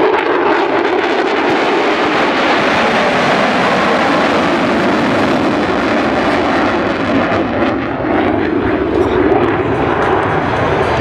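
F-22 Raptor fighter jet flying its display, its twin Pratt & Whitney F119 turbofans making a loud, steady rush of jet noise.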